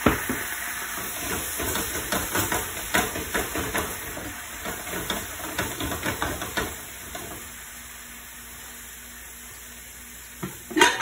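Shrimp sizzling and crackling in a hot frying pan as freshly added white wine boils off in a hiss of steam, with a sharp knock at the very start. The crackling thins out after about seven seconds to a quieter steady hiss, and a louder clatter comes near the end.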